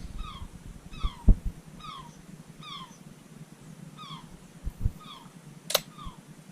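Seagulls calling overhead: a run of short, mewing cries, each falling in pitch, about one a second. A few low thumps sound in between, and one sharp crack comes near the end.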